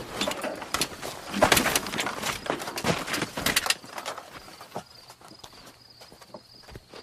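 Irregular clattering knocks and cracks, dense at first, then thinning and fading after about four seconds, with a steady high-pitched chirring tone coming in.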